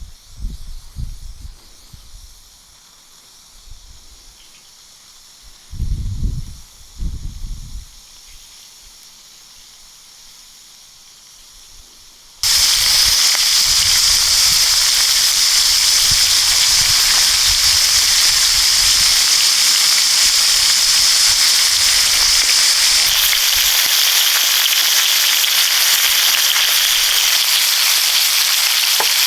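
Meat frying hard in hot fat: a loud, steady sizzle that cuts in suddenly a little under halfway through. Before it there are a few low thumps over a faint background.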